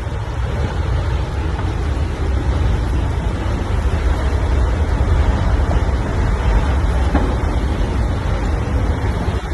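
Strong wind buffeting the microphone during a tornado: a steady low rumble under a loud rushing hiss.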